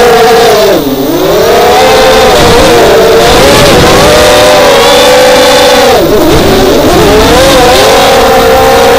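An FPV racing quadcopter's four Lumenier 2206 2000 kV brushless motors spin HQProp Bullnose 5045 propellers on a 4S battery, making a loud whine. Its pitch dips sharply about a second in and again around six seconds, then climbs back each time: the throttle being cut and reapplied in flight.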